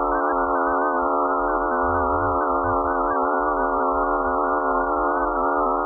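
An electronic drone of many steady tones held together, the upper ones wavering slightly, presented as the sound of Mars's moon Phobos.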